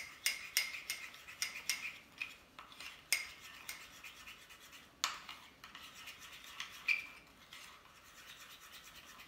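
Metal spoon stirring and scraping spice paste around a small ceramic bowl: quick scrapes and clinks, frequent at first and sparser and fainter after about seven seconds.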